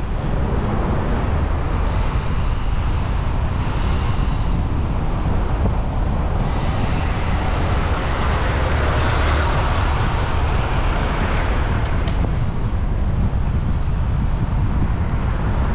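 Steady wind buffeting the microphone while moving along a city street, with road traffic around. A vehicle swells past about nine to ten seconds in.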